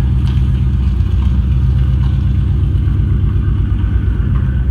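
A deep, steady rumble from a video soundtrack played over loudspeakers in a large hall. It is engine-like, with no clear beat or rise in pitch.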